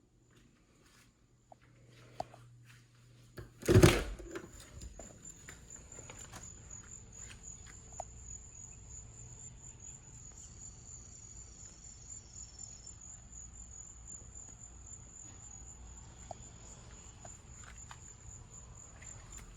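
A steady, high-pitched insect trill, like crickets, runs without a break. One loud thump comes about four seconds in, followed by low rumbling handling noise and scattered faint knocks.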